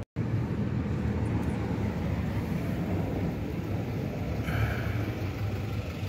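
Steady low rumble of a vehicle running, heard from inside, after a brief dropout at the very start.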